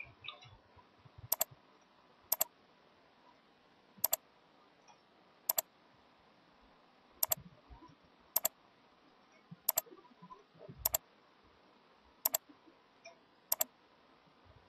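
Computer mouse clicking about ten times at irregular intervals of one to two seconds, each click a quick double tick of press and release, over a faint steady hiss.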